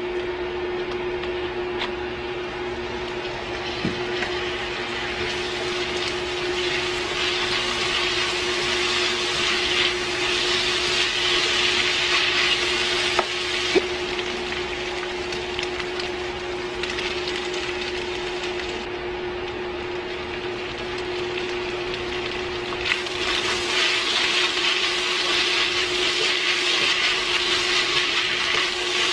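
Minced meat, onion and potato sizzling in a nonstick pan as a spatula stirs them, the sizzle swelling louder in two stretches, with a couple of sharp spatula knocks about halfway through. A steady hum from the induction cooktop runs underneath.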